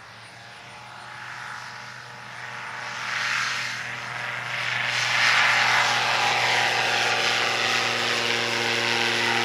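Savage Shock Ultra light-sport airplane's propeller and turbocharged 115-horsepower Rotax engine at takeoff power, a steady drone that grows louder as the plane lifts off and climbs past, loudest from about halfway through.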